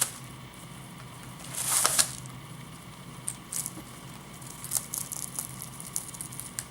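Rabbit eating hay: a loud rustle of dry hay about two seconds in, then scattered small crunches and rustles as the stalks are pulled and chewed.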